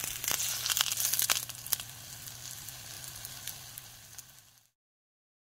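Seitan sausage sizzling in hot oil in a frying pan, a steady hiss with sharp crackles, loudest and busiest about a second in, then fading. The sound cuts off abruptly near the end.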